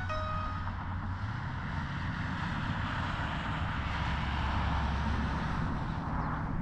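Flishrc Little Bird 450 RC helicopter's rotors and motor running steadily, the rotor sound swelling toward the end before dropping off. A short two-note electronic beep, falling in pitch, sounds at the very start.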